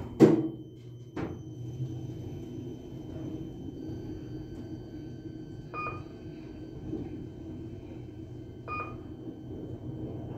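KONE elevator car travelling down: a loud knock from the doors shutting at the start, then the steady hum of the car in motion. A short beep sounds twice, about three seconds apart, as it passes floors.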